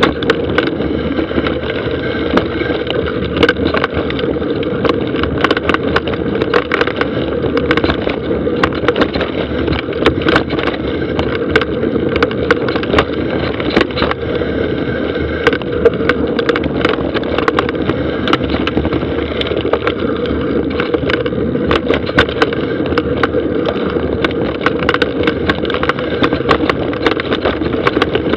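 Mountain bike riding fast down a dry dirt trail, picked up by an action camera's own microphone: a steady rush of tyre and riding noise with frequent irregular rattles and knocks as the bike jolts over bumps and roots.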